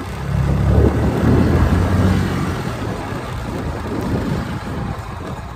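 Chinese 150cc motor scooter being ridden along, its engine and road noise under a heavy low wind rumble on the microphone, loudest in the first two seconds or so and then easing a little.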